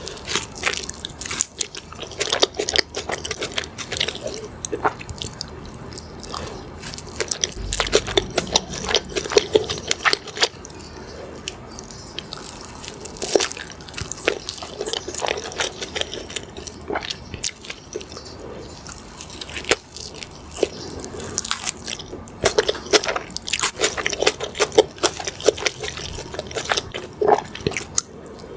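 Close-miked eating sounds: biting into and chewing a crispy fried chicken burger, with crunches and wet, sticky mouth sounds in quick irregular succession.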